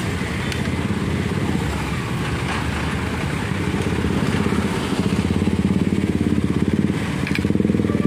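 Road traffic crossing the railway tracks: motorcycle engines and a small truck's engine running close by. The engine pulsing grows louder from about five seconds in as the vehicles pass nearest.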